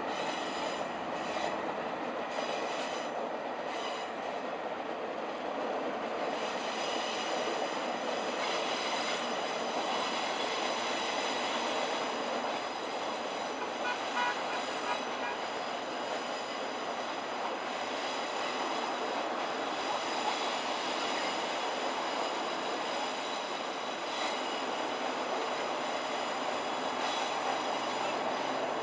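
Train of DL class diesel-electric locomotives rolling along the line: a steady running noise of wheels on rails with a faint high whine over it.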